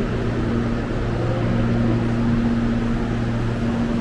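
Steady electrical and mechanical hum of an electric commuter train at a station platform, a low even drone with a few faint steady tones above it.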